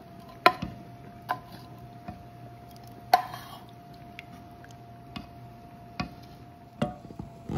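Irregular clicks and knocks of a tin can and a small whisk striking a stainless steel saucepan as tomato juice is emptied in and stirred, with one brief scrape about three seconds in. A faint steady hum runs underneath.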